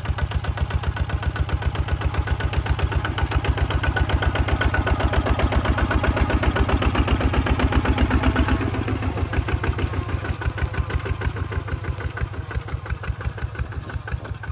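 Kubota walking tractor's single-cylinder diesel engine chugging steadily as it pulls a disc plough through the soil. The beat drops somewhat in loudness a little past halfway.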